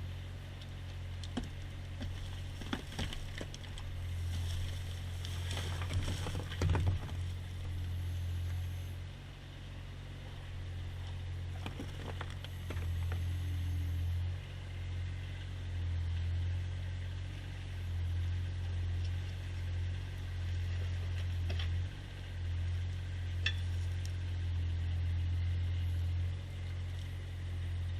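An engine running steadily with a low drone that swells and eases, with scattered knocks and rattles, a cluster of them a few seconds in.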